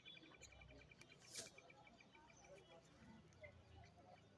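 Faint bird trill: a rapid, even run of short notes that stops about two and a half seconds in. A brief hiss comes about a second and a half in.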